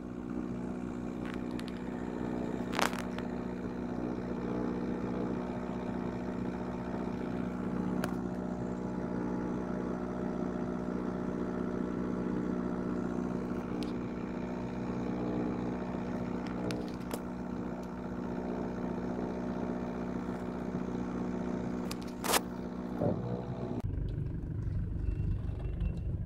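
Mitsubishi Delica L400 engine idling steadily, heard from inside the cab, with a few short sharp clicks. About two seconds before the end the even engine note gives way to a lower, rougher rumble.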